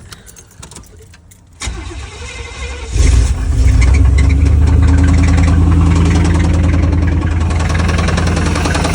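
Chevy 350 V8 in a 1991 Caprice being started: a few clicks, about a second of cranking, then it catches about three seconds in and settles into a steady idle. It runs with a noise that the owner asks about: a spun bearing or an old water pump pulley.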